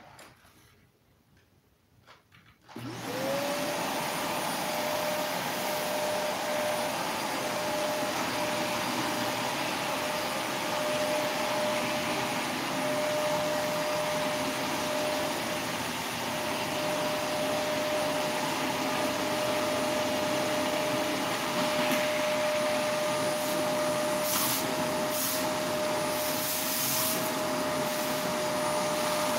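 An electric motor appliance switches on about three seconds in. Its whine rises quickly to a steady pitch over a loud, even hiss, and it then runs steadily.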